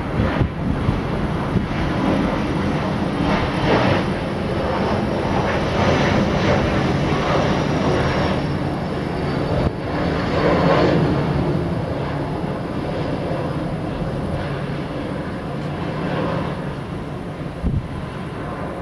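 Airliner coming in to land, its engines a steady rumble with a faint high whine that slowly falls in pitch through the middle.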